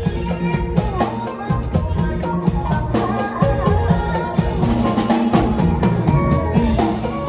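Isan (northeastern Thai) band music: a keyboard melody over a steady drum-kit beat.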